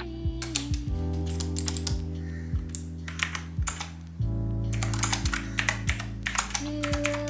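Quick, irregular light clicks and taps, like typing, over background music with a steady bass line.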